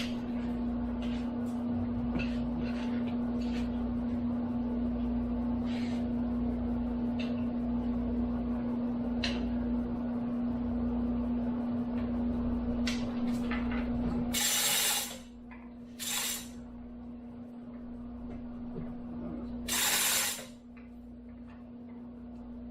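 A steady machine hum with scattered light clicks and knocks, which cuts off about two-thirds of the way through; then three short, loud bursts of hissing, the middle one briefest, after which the hum comes back.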